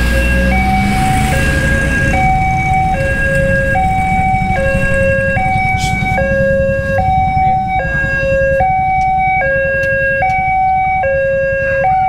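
Railway level-crossing warning alarm: an electronic two-tone signal switching between a lower and a higher note about every three-quarters of a second, repeating steadily while the barriers are down.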